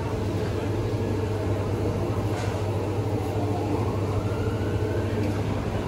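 A steady low mechanical hum, with a faint rising whine about four seconds in.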